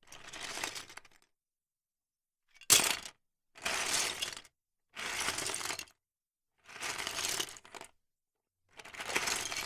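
Plastic Lego bricks clattering together in six separate bursts with silence between, each under a second; the second, about three seconds in, is short, sharp and the loudest.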